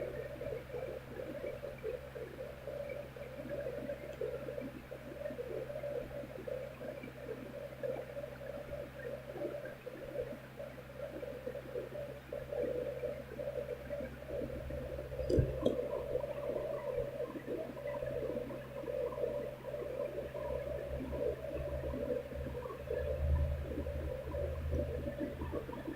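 Steady low hum over background noise, with a single knock about halfway through.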